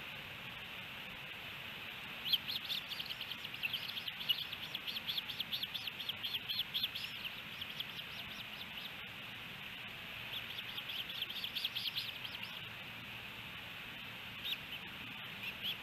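Ospreys calling: rapid series of high, evenly spaced chirps, in two long bouts and a couple of short ones near the end, over a steady background hiss.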